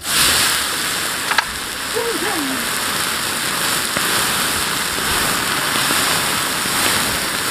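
Water hitting molten candle wax over a wood fire: a sudden loud rushing hiss as the water flash-boils and throws the burning wax up into a fireball, with the flames rushing on steadily and a single sharp crack about a second and a half in.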